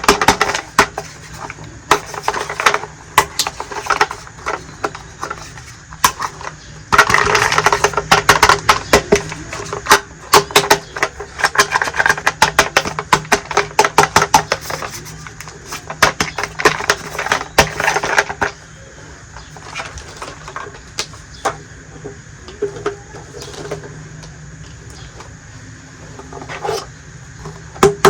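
Small hard plastic toy pieces being handled, unpacked and set down: many sharp clicks and taps, coming thickest and loudest through the middle, with light rustling between them.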